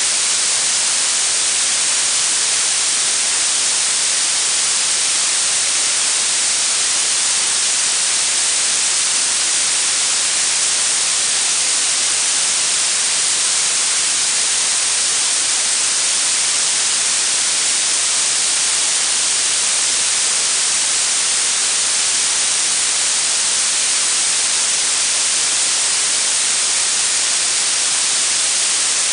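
Blue noise: a steady, even hiss with most of its energy in the highest pitches, so it sounds bright and thin like fine spray.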